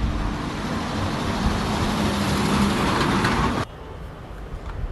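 Steady motor-vehicle noise: a low engine hum under an even rush of road noise. It cuts off abruptly a little over halfway through.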